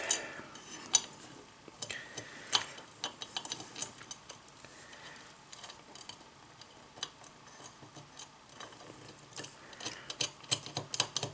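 Small, sharp metal clicks and ticks at an irregular pace, growing denser near the end, as a washer and nut are fitted and threaded by hand onto a lamp dimmer's threaded shaft.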